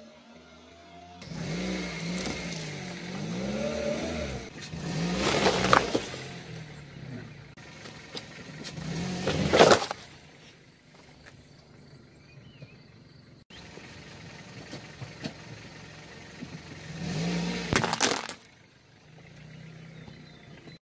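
Car engine running and revving as its tyre rolls over objects on concrete. The objects burst and crunch under the wheel, with three loud sharp crunches spread through.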